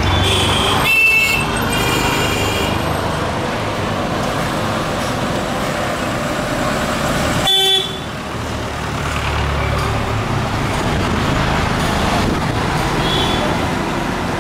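Street traffic: engines and tyres running steadily, with vehicle horns honking several times in the first few seconds, once sharply about seven and a half seconds in, and faintly near the end.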